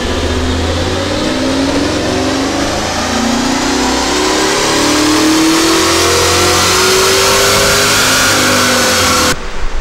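A 1969 Camaro's LS3 V8 at full throttle on a chassis dyno, the revs climbing steadily through the pull to around 6,500 rpm. The sound cuts off suddenly near the end.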